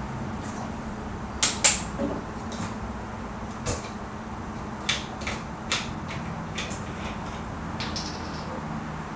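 Small kitchen clicks and clinks of measuring spoons and bottles handled over a glass measuring cup while vanilla extract and vinegar are measured in: a handful of sharp ticks, the two loudest close together about a second and a half in. A steady low hum runs underneath.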